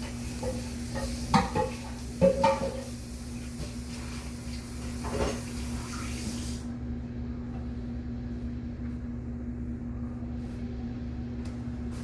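A few sharp clattering knocks, three of them within the first six seconds, over a steady low hum.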